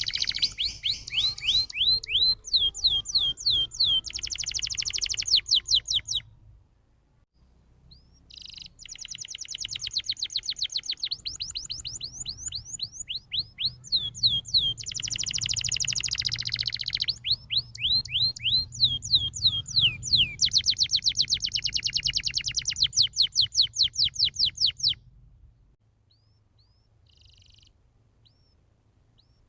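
Canary singing, with long rolls of very rapid repeated trilled and sweeping notes. There is a short pause about seven seconds in, and only a few faint notes near the end.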